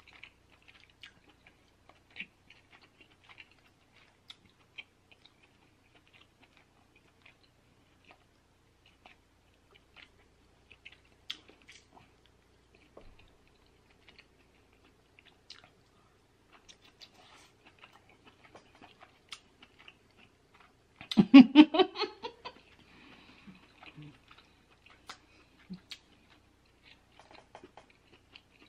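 Close-miked chewing of king crab meat, with small wet mouth clicks and smacks scattered throughout. About three-quarters of the way through comes one loud, short voiced sound of about a second from the eater.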